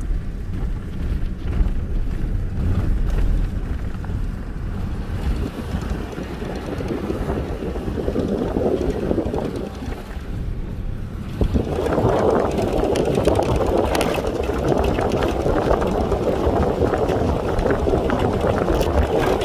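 Truck driving along beach sand: a steady low engine and tyre rumble with wind on the microphone, growing louder about twelve seconds in.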